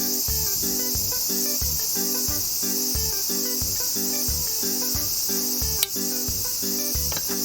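Steady chorus of crickets or similar insects, over background music with a regular low beat of about two notes a second. A sharp click sounds twice near the end.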